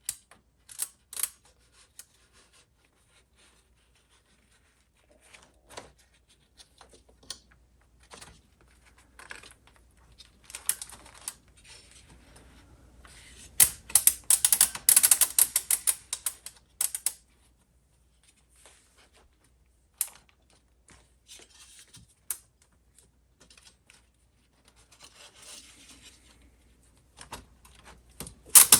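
Parts of a Rock-Ola 449 jukebox's Write In Read Out mechanism clicking and scraping as it is worked apart by hand. About halfway through comes a dense, louder run of rapid clicks and rattling.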